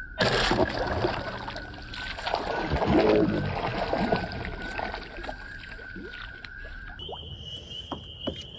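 Loud splashing and knocking in the water against a kayak hull, starting suddenly and dying down after about five seconds. A steady high-pitched whine runs underneath and jumps higher in pitch about seven seconds in.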